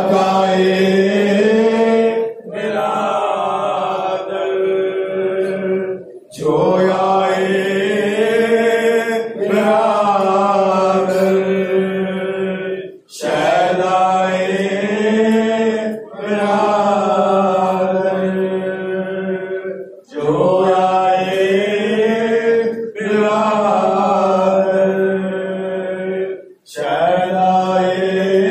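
Men's voices chanting a Muharram lament (noha) into microphones, in long phrases on a steady low pitch, broken every three to four seconds by short pauses for breath.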